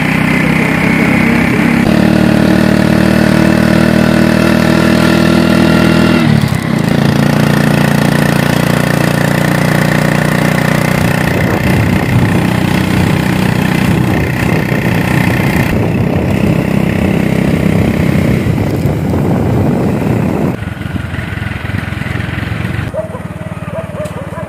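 Motorcycle engine running as the bike is ridden along the road. Its note shifts about two seconds in and dips briefly around six seconds in, then quietens over the last few seconds.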